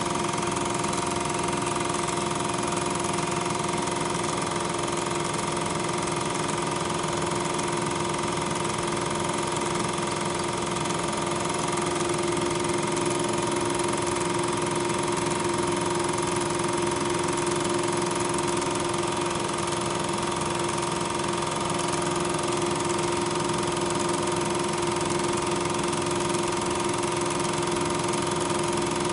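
Steady machine whir with a constant whine and hiss, unchanged from start to finish and deaf to the picture cuts. This is the running noise of the film-transfer equipment on a silent 8mm film, not the trains on screen.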